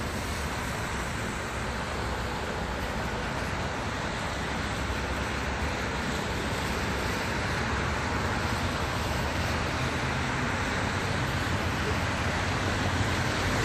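Steady traffic noise of a convoy of cars and police vehicles passing on a wet road, a constant hiss of tyres and engines with no sirens, swelling slightly toward the end.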